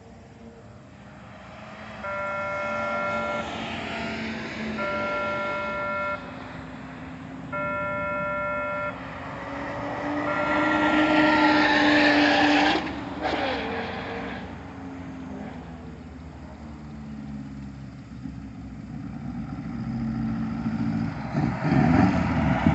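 A vehicle horn sounds four times, each blast about a second and a half long, over vehicle noise. The vehicle noise swells to its loudest just before 13 seconds and cuts off abruptly, followed by lower rumbling that grows again near the end.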